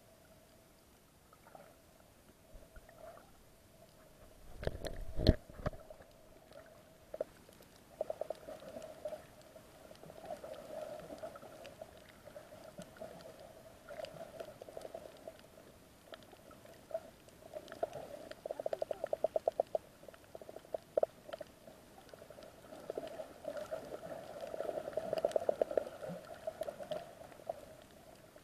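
Muffled underwater sound picked up through an action camera's waterproof housing while snorkeling: a steady hum with scattered clicks and bursts of rapid ticking, and a low thud about five seconds in.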